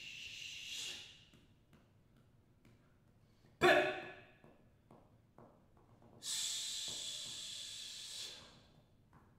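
Breath and vocal sounds made by a performer as body percussion: a hiss trailing off in the first second, a sudden sharp gasp-like sound with a vocal tone about a third of the way in, then a long hissed breath of about two seconds. Faint small taps are heard between them.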